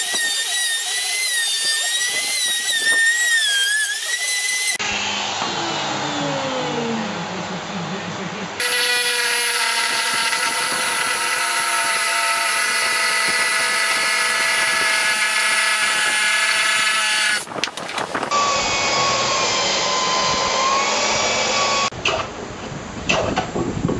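Hand-held router running and cutting out a dovetail-plug recess, its whine wavering as it bites into the wood, then falling in pitch as it winds down. After that, a reciprocating saw runs steadily, cutting into a wooden board, with a few knocks near the end.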